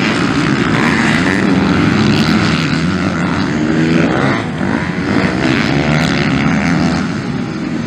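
Several MX2-class motocross bikes accelerating and revving through a dirt-track corner, their engine notes rising and falling in pitch as they pass.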